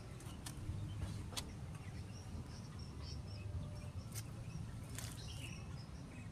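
Outdoor ambience: a steady low rumble with a few sharp clicks, and faint bird chirps now and then.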